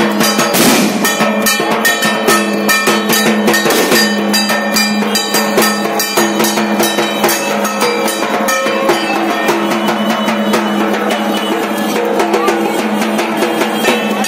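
Loud drum music with a fast, dense beat of strikes over steady held tones.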